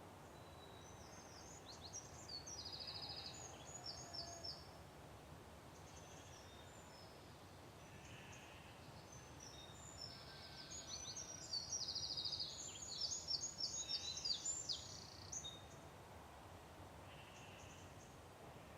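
Songbird singing two bursts of rapid, high trilled song, the second burst, about ten seconds in, louder and longer, over a steady faint background hiss of morning ambience.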